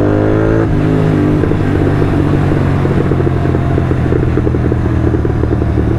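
Royal Enfield Continental GT 650's parallel-twin engine through Red Rooster aftermarket exhausts, revs climbing, then dropping at a gear change under a second in. It runs on steadily, and in the second half a rapid, irregular popping crackle comes from the exhaust, the crackle of its Code 6 tune.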